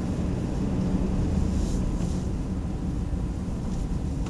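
Steady low rumble of a Hummer H2's V8 engine and tyres, heard from inside the cabin while driving.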